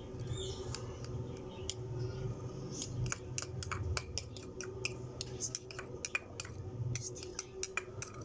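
Metal spoon scraping and tapping against the inside of a small bowl while scooping out chopped tomato and green chilli: a run of light clicks, sparse at first and quicker from about three seconds in.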